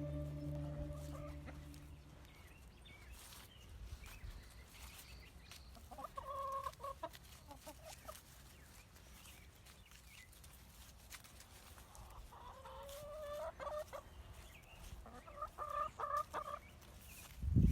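Chickens clucking, with three separate drawn-out calls over a quiet background. The tail of soft music fades out at the start.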